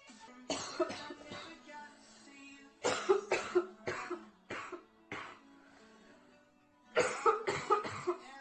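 A girl with a severe chest cold coughing nearly uncontrollably in fits. Two coughs come first, then a quick run of several, a few single coughs, a pause, and another rapid run near the end.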